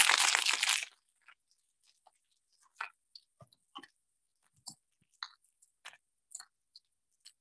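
Asparagus spears sizzling as they go into a hot skillet: a loud sizzle that cuts off about a second in, then faint scattered crackles and pops.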